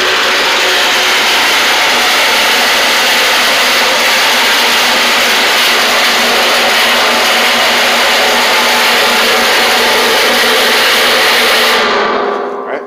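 Cordless reciprocating saw (Sawzall) cutting through the sheet-steel wall of a 55-gallon drum, its blade grinding through the metal. The sound is loud and steady, starts abruptly and dies away about twelve seconds in.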